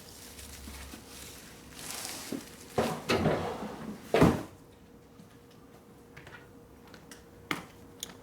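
A few clunks and knocks of parts and tools being handled around a motorcycle's rear axle, the loudest about four seconds in, with lighter clicks near the end.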